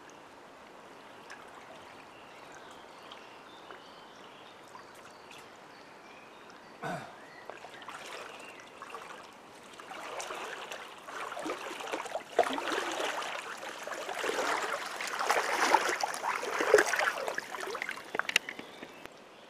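Shallow lake water lapping quietly, with a single knock about seven seconds in; from about ten seconds on, loud, irregular splashing and sloshing of water around the legs of a person wading through the shallows, which stops suddenly near the end.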